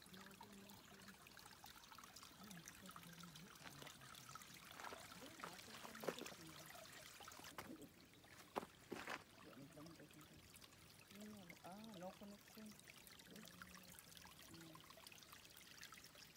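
Faint trickling of a small stream, with a few sharp clicks about six and nine seconds in.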